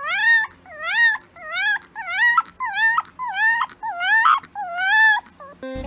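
A puppy howling in a series of short, high-pitched calls, each rising in pitch, about one and a half to two a second.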